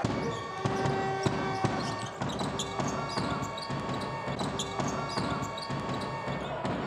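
Live basketball game sound: a ball bouncing on the hardwood court and sneakers squeaking on the floor in a series of quick knocks and short high squeaks.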